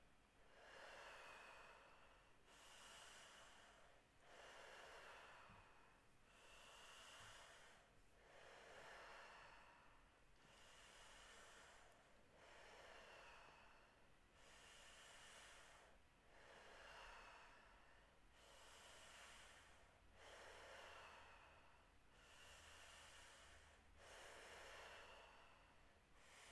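Faint, deep rhythmic breathing, a full breath in and out about every three and a half seconds, in the continuous cycle of Wim Hof-style power breathing.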